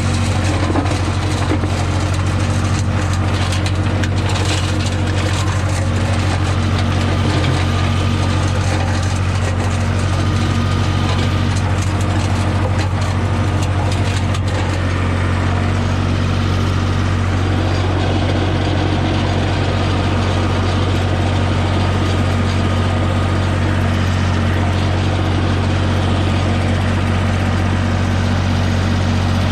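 Holder A45 vineyard tractor engine running steadily under load as it drives the mulcher, with crackling and snapping of chopped vine prunings in the first half that thins out later.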